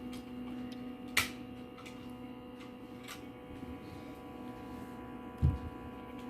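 Steady electrical hum, with a sharp click about a second in and a short low thump near the end.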